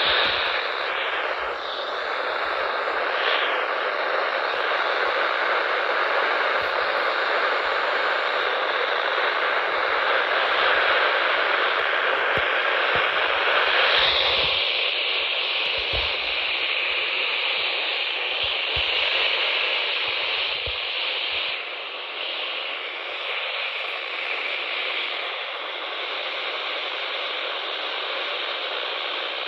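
Radio static: a steady hiss squeezed into the narrow band of a radio receiver, with no voice or alert tones coming through. Its tone shifts slightly about halfway through.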